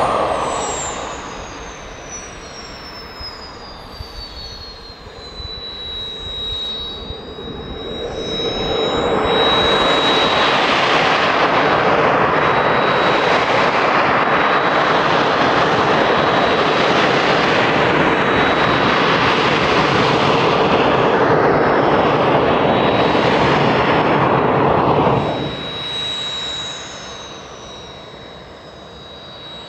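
Kawasaki T-4 trainer's twin turbofan jet engines on the runway: a steady high whine throughout, with a loud rush of jet noise building about eight seconds in, holding, then dropping away sharply about twenty-five seconds in. A falling whistle sounds at the start and again near the end.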